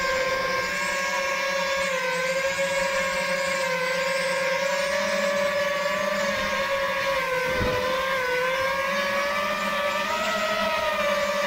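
FPV racing drone's motors and propellers whining steadily, the pitch dipping and rising slightly with the throttle.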